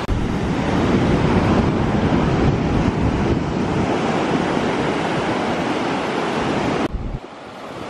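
Surf breaking on a sandy beach, with wind buffeting the microphone. The noise drops suddenly near the end to quieter surf.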